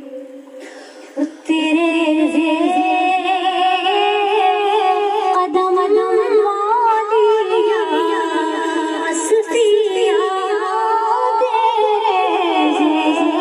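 Women's voices singing a naat without instruments, amplified through a microphone. The singing comes in loud about a second and a half in and continues with long, wavering held notes.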